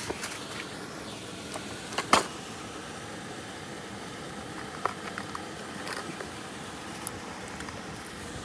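Steady background hiss with a few sharp clicks and knocks, the loudest about two seconds in.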